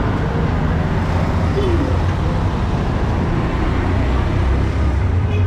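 Busy street traffic: vehicle engines run steadily in a constant low rumble, with indistinct voices in the background.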